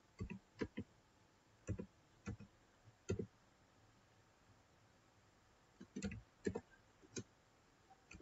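Computer keyboard keys clicking faintly as a word is typed: about a dozen keystrokes in small clusters, with a pause of about two seconds in the middle.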